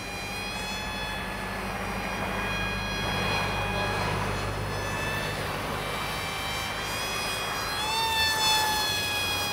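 Scratch-built corroplast radio-control plane's motor and propeller whining in flight overhead. A steady whine that shifts in pitch with throttle and climbs briefly near the end.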